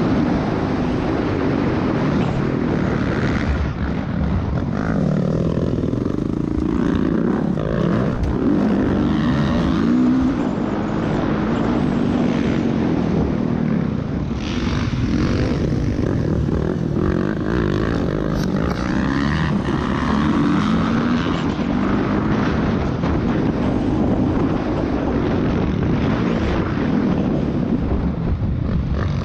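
Motocross dirt bike engine heard from onboard the bike, revving up and falling back again and again as the throttle opens and closes around the track.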